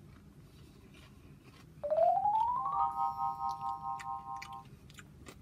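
Short musical sound effect: a quick run of notes rising in pitch for about a second, then a held chord of four tones for nearly two seconds before it stops.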